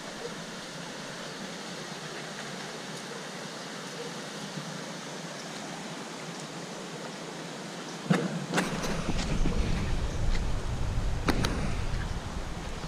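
Steady rush of a rocky stream running below the track. From about eight seconds in, a low buffeting on the microphone with a few sharp knocks.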